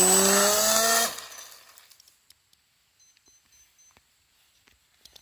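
Brushless RC airplane motor (1400 kV) with an 8x4 propeller, powered by a 4-cell lipo, running at high throttle with a high whine that keeps rising slightly. About a second in it cuts off and winds down, leaving a few faint clicks.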